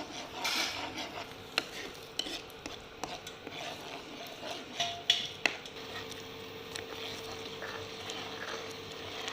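A spoon stirring and scraping onion-tomato masala in a pan, with a few sharp clicks of the spoon against the pan over a low sizzle. The masala is being fried until the oil separates from it.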